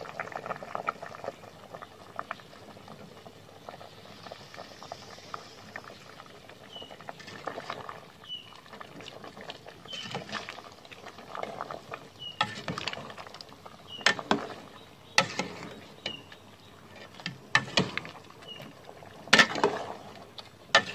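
Jackfruit curry bubbling in an aluminium pot, then a metal ladle stirring through it, clacking and scraping against the pot's side. The sharp knocks start about seven seconds in and are loudest near the end.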